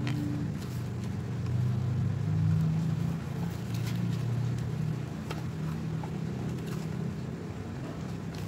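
A steady low drone, engine-like and swelling and fading slightly, runs under a few soft clicks and rustles of paper being folded by hand.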